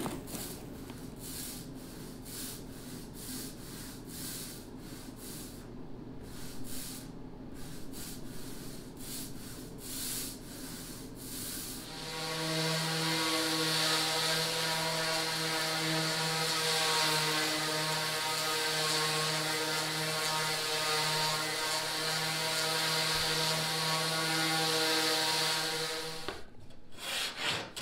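A roller spreading epoxy over plywood in quick back-and-forth strokes, then, about twelve seconds in, a random orbital sander on a dust-extraction hose starts up and runs steadily with a hum, sanding the cured epoxy coat.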